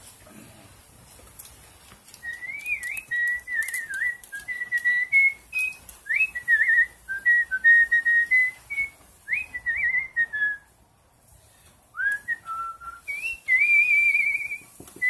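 A man whistling a tune with pursed lips: one clear melodic line in phrases, with quick upward slides into notes and short held notes. It breaks off for about a second just after ten seconds in, then carries on.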